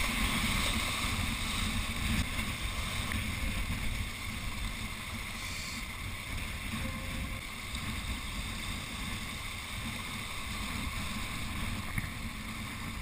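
Wind buffeting the microphone over choppy water washing against rocks, a steady rushing noise with a fluttering low rumble.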